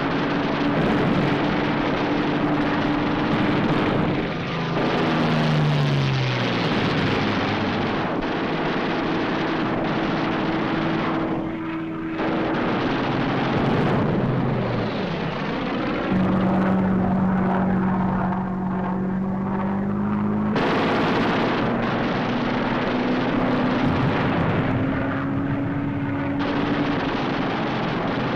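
Propeller fighter plane's piston engine running hard, a dense steady drone whose pitch drops about five seconds in. The sound changes abruptly several times.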